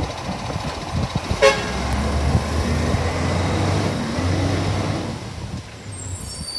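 Garbage truck's diesel engine running with a steady low hum, louder for a few seconds from about one and a half seconds in. A single short horn toot sounds at about one and a half seconds.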